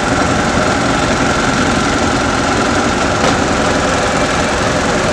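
A nearby engine idling steadily with a pulsing low rumble and a thin steady whine above it, and one brief click about three seconds in.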